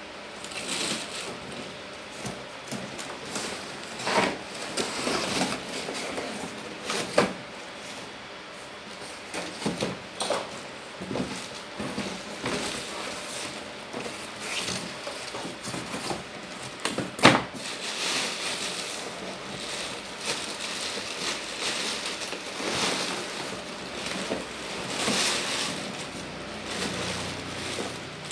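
Cardboard carton flaps and plastic wrapping rustling and crinkling as wall-fan parts are pulled out of the box, with a few sharp knocks, the loudest about seventeen seconds in.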